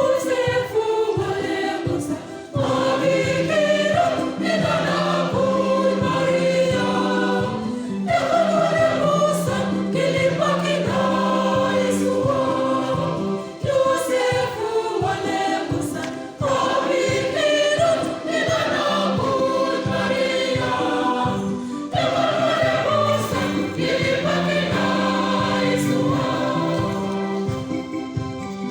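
Church choir singing a gospel song in sung phrases of several seconds, over an accompaniment with a steady beat.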